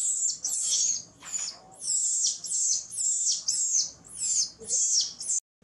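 Infant macaque screaming: a rapid series of shrill cries, each falling in pitch, about two to three a second, cut off abruptly near the end.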